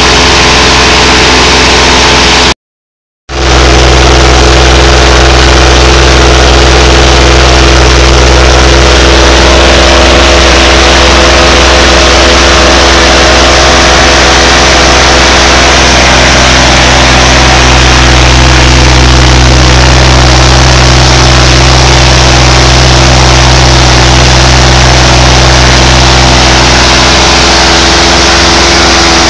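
Verner JCV-360 paramotor engine, a fuel-injected single-cylinder four-stroke, running at a steady speed with its propeller spinning, very loud. The sound drops out completely for under a second about two and a half seconds in.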